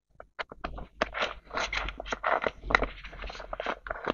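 Cash envelopes and bills being handled in a budgeting binder: an irregular run of short rustles, crinkles and scrapes of paper and plastic.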